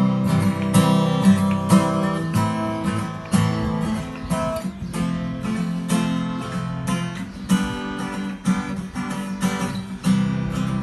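LAG Tramontane T88DCE acoustic guitar being played: chords strummed and picked in a steady rhythm, the strings ringing between strokes.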